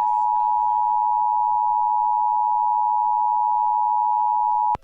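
Emergency Alert System attention signal: the steady two-tone alert sounded together at about 853 and 960 Hz, cutting off suddenly near the end.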